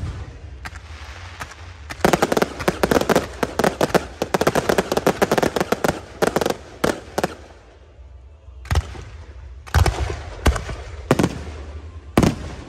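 Aerial fireworks going off: a dense run of rapid crackling bangs, then after a short lull several separate deep booms.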